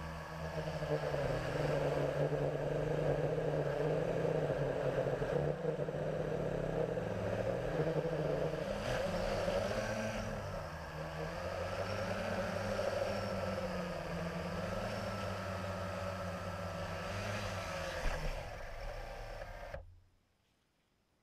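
Blade 350 QX2 quadcopter's electric motors and propellers whirring, heard from the camera mounted on it. The pitch rises and falls as the throttle changes, and the sound cuts off suddenly near the end.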